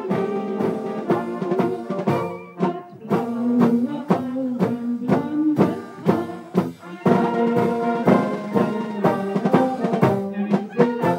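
Brass band playing a tune, with a tuba carrying the bass line.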